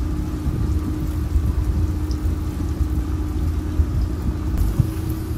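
Wind buffeting the microphone in a low, uneven rumble over the steady hum of a fishing boat's engine.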